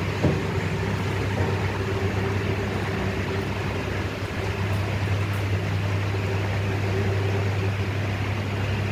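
Steady low hum with a faint hiss.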